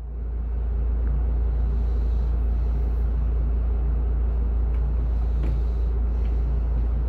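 City bus engine running, heard from inside the passenger cabin as a steady low rumble that grows louder in the first second and then holds.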